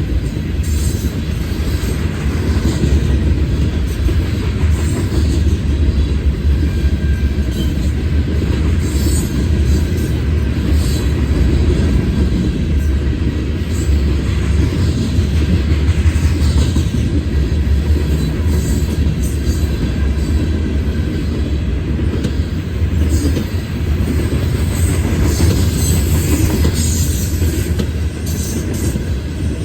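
Norfolk Southern freight train's cars rolling past: a steady heavy rumble of steel wheels on rail, with scattered short high clicks and squeaks.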